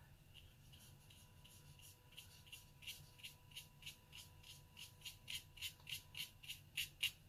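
Short, quick strokes of a flat wisp watercolour brush flicked across Arches 140 lb watercolour paper to lay down fur strokes. About three a second, starting about two seconds in and growing louder toward the end.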